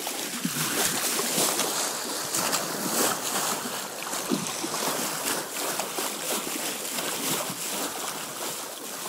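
Water rushing and splashing along a sailing boat's hull under way, with wind buffeting the microphone.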